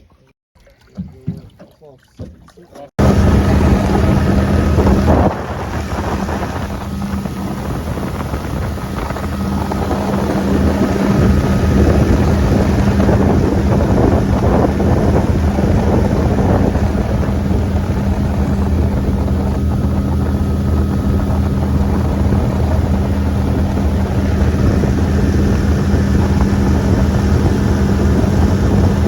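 Gator-Tail surface-drive mud motor running steadily with wind on the microphone, starting abruptly about three seconds in after a few faint knocks, and getting a little louder a few seconds later.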